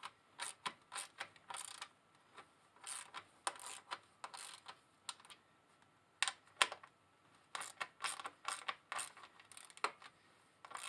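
Metal clicks, short rattles and scrapes as an antenna mast and its black mounting bracket hardware are handled and adjusted by hand, in irregular bursts.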